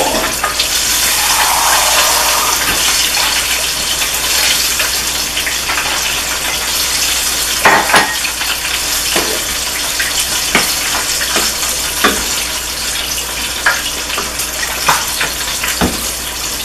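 Okra, sausage and shrimp frying in a pot: a steady sizzling hiss, with scattered sharp clicks and knocks from about eight seconds in.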